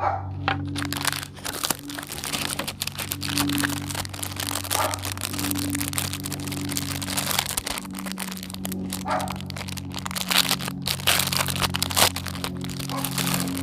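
Background music with sustained low notes, over dense, irregular crackling and clicking of plastic fidget toys and their packaging being handled.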